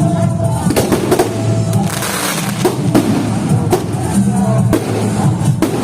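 Loud music playing, with sharp fireworks bangs cracking through it about once a second.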